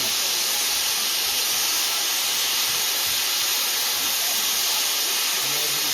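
Steady hiss of steam from a steam locomotive venting.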